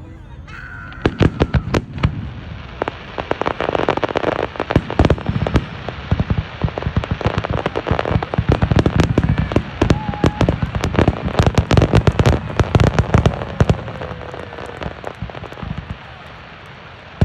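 Fireworks going off in a rapid, dense run of pops and bangs that thins out near the end.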